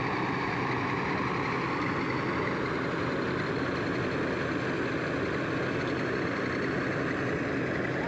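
Balkar combine harvester running steadily under load, its engine and threshing works going as the unloading auger pours mustard seed out. A constant, even machine sound with no changes.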